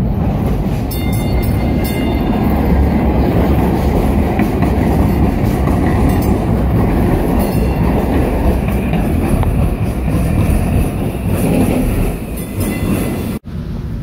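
DART light rail train running alongside on its street-level track: a steady loud rumble with a faint high whine at times.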